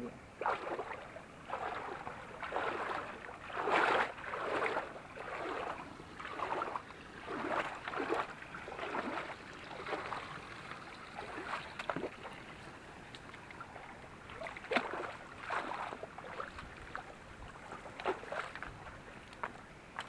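Legs wading through knee-deep stream water, a splash and slosh with each stride, coming at an uneven walking pace and thinning out toward the end.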